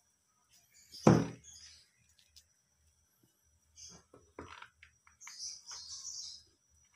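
Handling sounds at a stone mortar and pestle: one heavy thump about a second in, then a few lighter knocks and taps around four seconds in.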